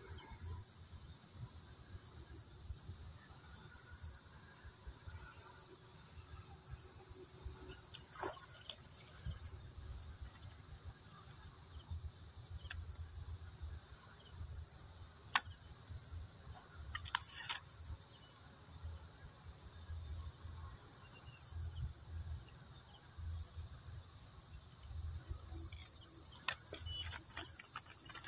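Steady, high-pitched chorus of crickets with a low rumble underneath and a few faint clicks.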